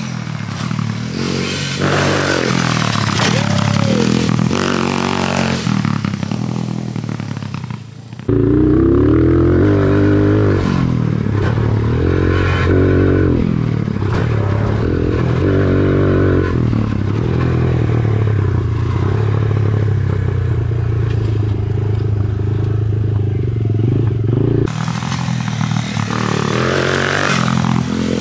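Dirt bike engines revving up and down with the throttle as the bikes ride round a motocross track. From about eight seconds in, one bike's engine is heard up close from a camera mounted on the bike, louder and rising and falling with each change of throttle. Near the end it switches back to a bike heard from the trackside.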